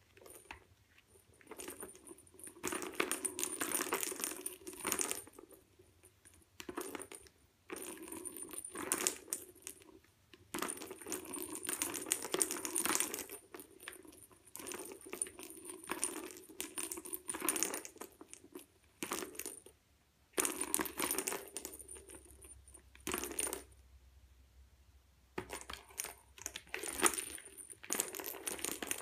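Plastic ball rolling and rattling around the circular track of a cat's ball-track toy as a cat bats it, in bursts of one to three seconds with short pauses between.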